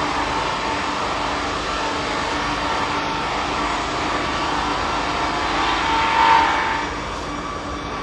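Sawmill canter line running: the circular saws of a track-chain log canter sawing a log, together with the conveyor chains, a steady mechanical hum with whining tones. It swells to a louder whine about six seconds in, then drops off a second later as the log clears the saws.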